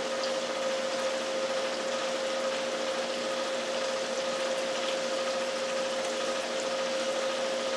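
Chicken frying in a pan of butter, olive oil and bacon grease: a steady sizzle, with a steady hum underneath.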